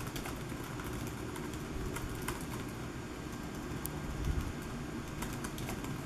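Fast touch typing on the OneGx1 7-inch mini laptop's small keyboard: a quick, irregular patter of key clicks. A low, steady background rumble lies under it.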